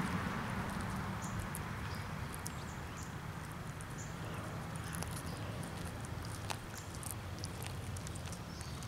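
Cat eating a dead chipmunk: irregular small clicks and crunches of its teeth tearing and chewing flesh and bone, one sharper crunch about six and a half seconds in, over a low steady rumble.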